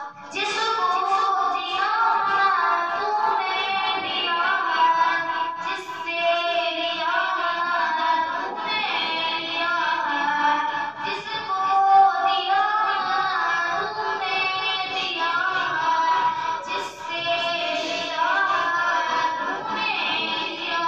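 A boy singing a naat, an unaccompanied Urdu devotional song, into a headset microphone: long, melismatic phrases with gliding pitch, separated by brief pauses for breath.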